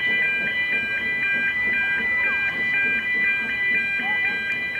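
Level-crossing warning alarm sounding: steady high electronic tones with a second tone alternating about twice a second, warning road traffic that a train is about to cross. Faint voices of people nearby underneath.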